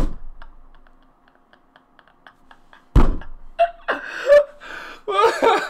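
Two heavy thumps about three seconds apart, with faint quick ticking between them, then a man's stifled laughter.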